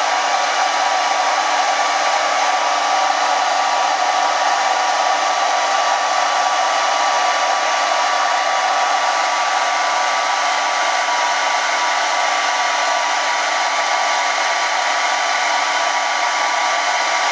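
Hair dryer running steadily on its lowest setting, a continuous rush of blown air with a faint steady whine, aimed close at crayon tips to melt the wax.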